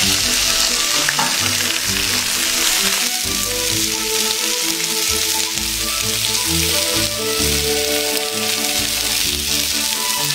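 Squid skewers sizzling steadily on a hot iron griddle, with background music playing.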